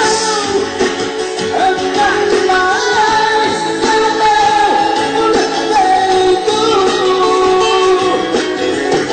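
Forró band playing live, with singing over guitar and a steady band backing.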